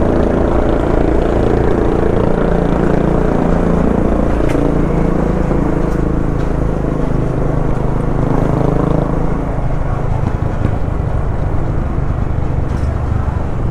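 Motorcycle engine running at a steady low cruising speed, with road and wind noise; the engine eases off slightly about nine seconds in.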